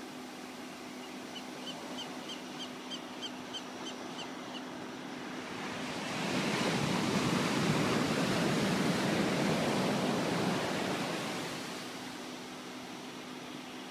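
A large box truck passes on the road above the beach, its noise swelling and fading over about five seconds over steady surf. Before it, a bird calls a quick series of about nine short, high notes.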